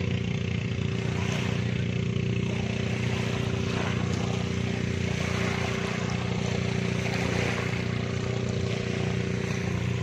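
Small waves washing up on a pebbly shore, swelling and fading a few times, over the steady drone of an engine.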